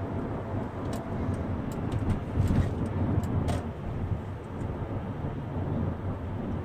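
Steady low road rumble inside a moving car's cabin, with a few short clicks and a knock between about one and three and a half seconds in.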